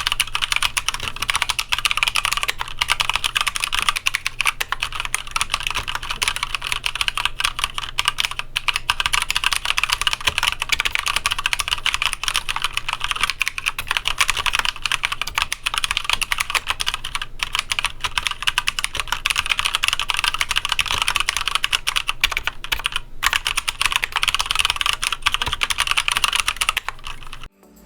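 Fast, continuous typing on a Keychron K8 mechanical keyboard with red (linear, quieter) switches, a dense run of key clicks that stops just before the end.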